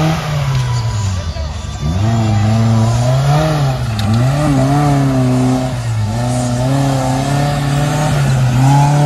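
Off-road 4x4's engine revving up and down over and over under load as the vehicle works through deep mud, its pitch rising and falling about once a second.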